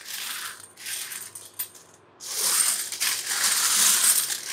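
A heap of bimetallic 10-rupee coins jingling and clinking as hands sweep and spread them across a table. Two short bursts come first, then after a brief pause a longer, louder stretch of jingling from about two seconds in.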